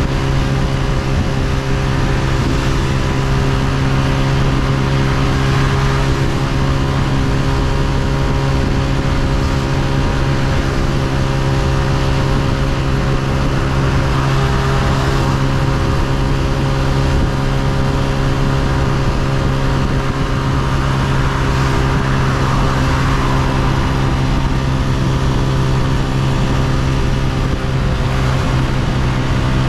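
Honda CG125's single-cylinder four-stroke engine running at steady revs while riding, heard from the rider's position, with a constant road and wind hiss underneath.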